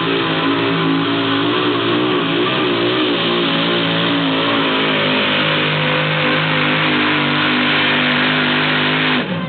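Modified pulling tractor running at full throttle down the pulling track, a loud, continuous engine note that wavers in pitch partway through. Near the end the engine note drops away as the run finishes.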